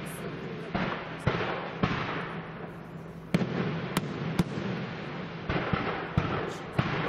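Aerial firework shells bursting in a display: about nine sharp bangs, irregularly spaced, each trailed by a hissing crackle of falling stars.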